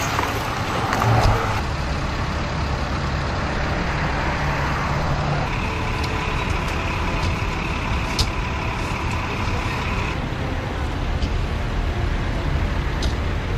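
Motor vehicle and road noise, steady throughout, with a steady high-pitched tone that sounds for about four seconds from around the middle.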